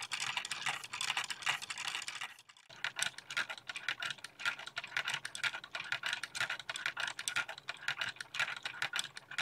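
LEGO Technic mechanism of a model antique sewing machine running, its plastic gears and linkages clattering in a rapid stream of clicks. There is a short break about two and a half seconds in, then the clatter carries on.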